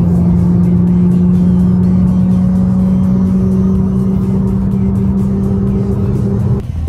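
Car engine droning steadily at highway cruising speed, heard from inside the cabin, its pitch creeping slightly upward; it cuts off suddenly near the end.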